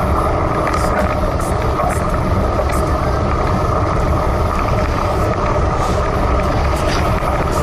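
Steady rumbling wind noise on the microphone of a handlebar-mounted camera on a road bike at about 25 km/h, mixed with tyre noise on a wet road and a few faint ticks.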